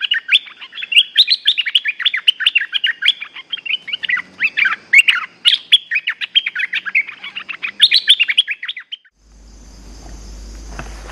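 Stripe-throated bulbul singing a fast, unbroken run of short chirpy notes, the chattering song used to lure wild birds to a decoy. About nine seconds in the song stops and a steady rushing noise with a low hum takes over.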